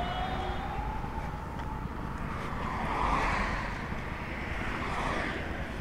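Motorcycles on the road: a faint engine note rises in pitch over the first second or so, over a steady rush of road and wind noise that swells twice, about three and five seconds in.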